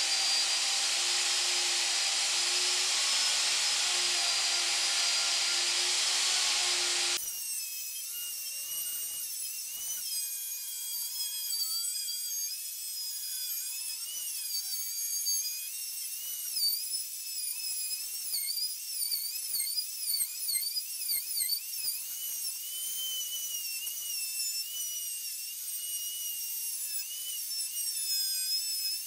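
Electric router with a large straight bit running at high speed, giving a loud, steady whine. About seven seconds in the sound changes abruptly to a thinner, higher whine that keeps dipping and rising in pitch as the bit cuts into the walnut seat blank.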